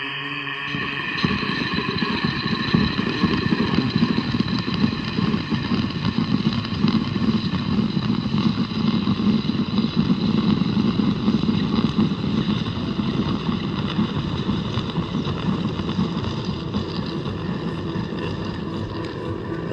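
Ambient soundtrack music of steady held tones, joined about a second in by a dense, rough low rumble like a running motor that holds steady to the end.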